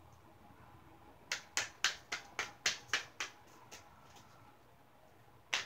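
A deck of tarot cards being shuffled hand to hand, the cards snapping sharply in a quick run of about eight strokes, some four a second, starting about a second in; a second run begins near the end.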